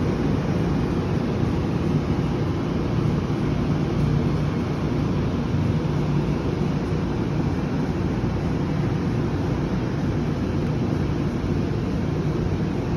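Steady low rumble of road traffic heard from high above the street, with no siren sounding.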